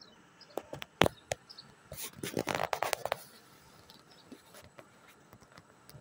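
Indian ringneck parakeet clicking and scraping on a wire cage: a few sharp clicks, the loudest about a second in, then a scratchy run of rapid clicks from about two to three seconds in, and a few faint ticks after.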